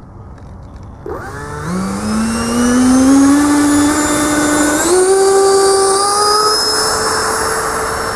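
Electric ducted fan of a radio-controlled F-100 Super Sabre jet on an 8S battery, spooling up for takeoff. A rising whine starts about a second in and climbs steadily. It jumps up in pitch about five seconds in as the throttle is pushed further, then holds near full power as the jet gets airborne.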